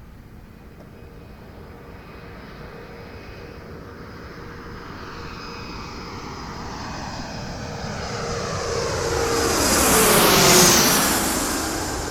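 Airliner on landing approach passing close overhead, growing steadily louder to a peak about ten seconds in, its engine whine dropping in pitch as it goes by, then fading.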